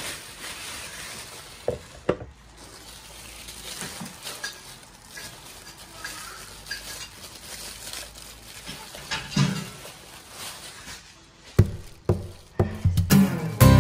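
Plastic wrapping rustling and crinkling while a waffle iron is unwrapped and handled, with a few light knocks of the appliance against the board. Music starts near the end.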